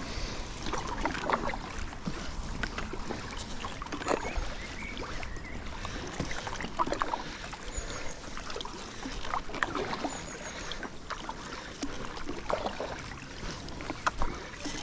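Kayak paddle strokes in river water: irregular splashes as the blades dip in and pull through, with water running off them.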